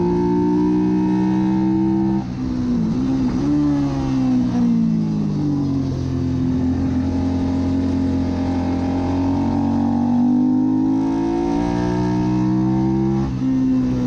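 Suzuki SV650 race bike's V-twin engine under racing throttle. It climbs in pitch, drops off sharply about two seconds in and winds down over the next few seconds, holds a steady note, then climbs again before another sharp drop near the end, as the rider shifts gears and slows for and drives out of a corner.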